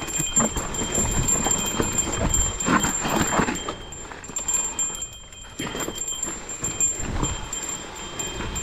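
Kenevo SL e-mountain bike rattling and clattering on a rough dirt singletrack descent, its tyres crunching over loose dirt and rocks, with an irregular knocking and some metallic jingling; the noise eases briefly about five seconds in.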